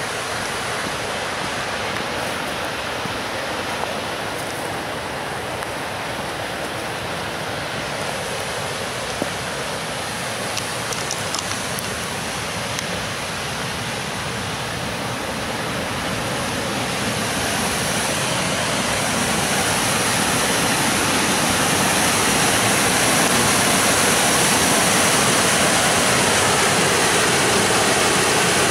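Rushing water of river rapids, a steady roar that grows louder from a little past halfway through and then holds.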